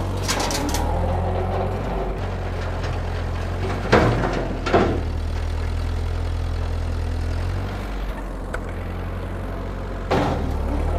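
1948 Ford 8N tractor's four-cylinder flathead engine running steadily while the Woods M5 rotary cutter on its PTO chops into thick brush. Short sharp bursts of clatter come about four seconds in, again a moment later, and near the end.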